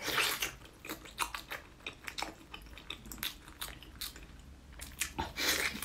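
Eating sounds of a braised pork hock being bitten and chewed: a loud tearing bite at the start, then many short clicks of chewing, and another loud stretch of biting about five seconds in.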